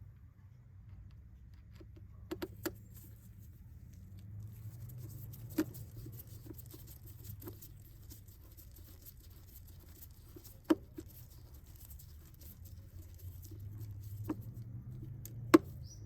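Small parts and hand tools being handled in a car's engine bay: scattered sharp clicks and taps, a quick cluster of three a couple of seconds in and single louder ones later, the loudest near the end, over light scratching and a faint low hum.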